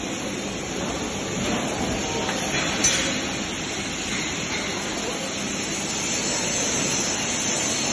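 Steady hiss of a TIG (GTAW) welding arc on steel pipe, with a single short click about three seconds in.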